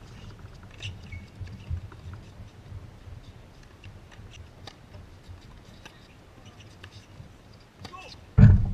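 Tennis rally heard from behind the court: short pops of the ball coming off the rackets over a low rumble of wind on the microphone, with a loud thump near the end.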